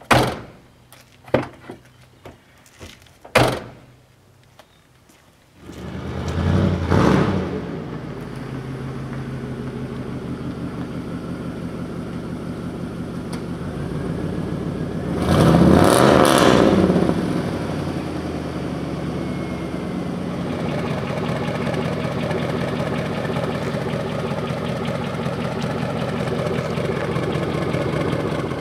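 Several sharp clicks and knocks, then a pickup truck's engine starts about six seconds in and revs briefly. It revs again around the middle, then settles into a steady run.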